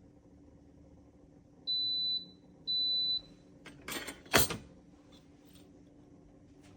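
Two short electronic beeps about a second apart, each a steady high tone, followed about a second later by a brief clatter ending in a sharp knock.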